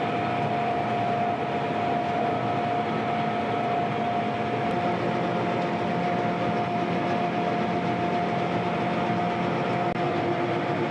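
Combine harvester running steadily, a constant mechanical drone with a steady mid-pitched whine over it.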